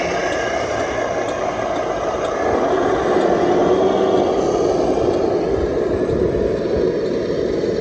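1/14-scale radio-controlled semi-trucks driving past, giving a steady engine-like drone that swells slightly about halfway through.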